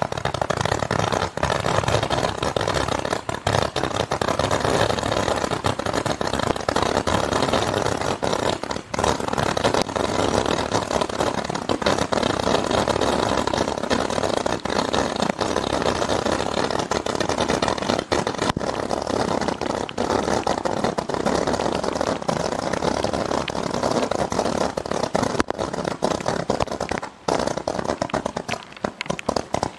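Ten 160-shot 12mm blue-tail roman candle barrages, a low-noise type, firing together: a dense, continuous rattle of small launch pops that merge into one steady noise, with a brief dip near the end before the last shots.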